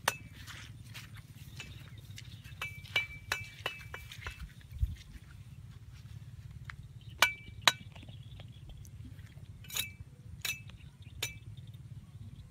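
Cast net being gathered and handled, its rim weights clinking together in scattered sharp clicks, several with a brief metallic ring, over a steady low background hum.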